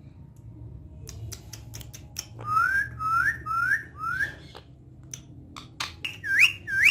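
Parrot whistling: four short whistles in a row, each rising and curling over, then two more hooked whistles near the end, with scattered clicks in between.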